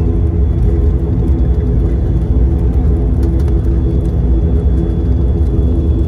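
Steady drone of a turboprop airliner heard from inside the cabin: a loud low rumble with an even hum from the engines and propellers, holding level throughout.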